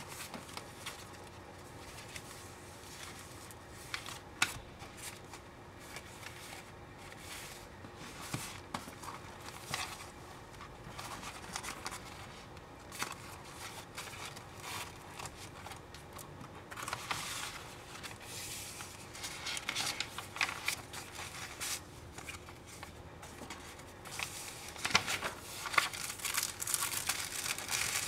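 Paper and card rustling and crinkling as a handmade junk journal's twine wrap is unwound and its pages, pockets and tags are handled, with scattered light taps. The rustling is busiest in the last ten seconds.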